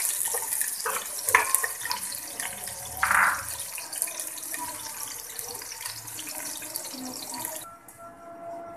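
Sliced onions frying in hot oil in a steel pot: a steady sizzle, with a few knocks of the stirring spoon against the pot in the first seconds and one louder clack about three seconds in. The sizzle cuts off suddenly near the end.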